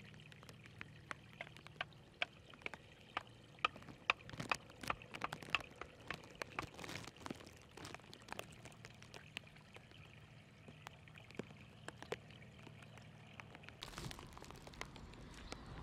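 Shallow water running out of a pond along a narrow muddy channel, trickling and gurgling, with many small sharp splashes and drips that come thickest in the middle. Near the end the sound changes to a fuller, rougher noise.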